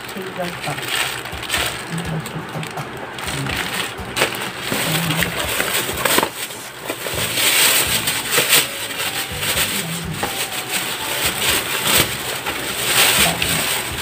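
Plastic bag and food packaging crinkling and rustling as they are handled and unwrapped by hand, with many small irregular crackles.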